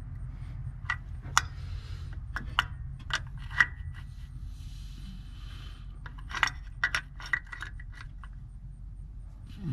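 Steel combination wrench clinking against the threaded transmission cooler line fittings as they are tightened: a scattered run of sharp metallic clicks with a short scrape near the middle, over a low steady hum.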